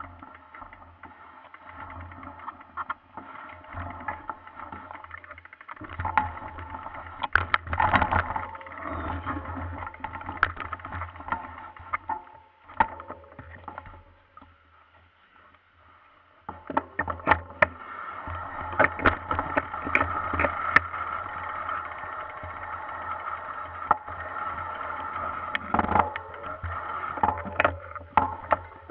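Mountain bike rolling over a rough forest trail, heard from a camera mounted on the bike: rattling with many sharp clicks and knocks over the bumps, over a steady running noise. It goes quieter for a few seconds in the middle.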